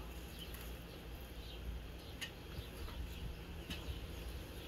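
Faint, scattered short bird chirps over a low, steady rumble.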